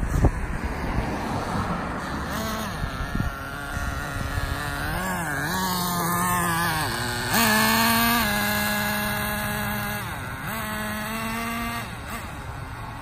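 Traxxas Jato 3.3 nitro RC car's small glow-fuel engine running under throttle, its note rising and falling as it drives. In the second half it holds a steady high pitch for a few seconds, loudest just after the change. A sharp knock comes right at the start.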